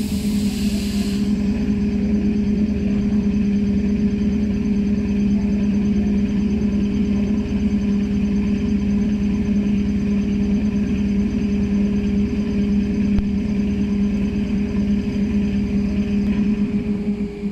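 Auxiliary machinery on a standing ЭД2Т electric train running with a steady, loud hum and a low rumble beneath it. It starts with a short hiss of air and cuts off suddenly near the end.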